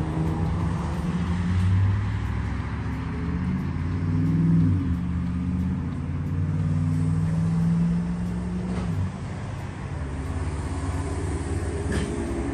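A motor vehicle engine running, its pitch rising briefly partway through and falling away suddenly about nine seconds in.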